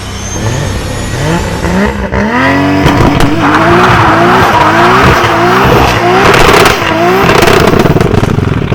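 Car engine revving up in quick repeated rises, about two a second, over loud tyre squeal from about three seconds in, as a car is driven hard or drifted.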